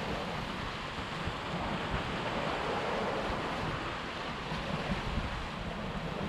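Small waves washing and breaking against the concrete blocks of a breakwater, a steady rushing surf, with wind buffeting the microphone in low rumbles.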